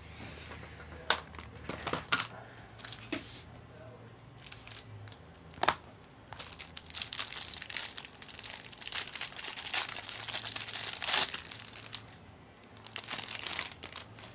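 A few sharp knocks, then a trading-card pack's wrapper being torn open and crinkled in the hands while the stack of cards is pulled free, with a short pause before a last burst of crinkling near the end.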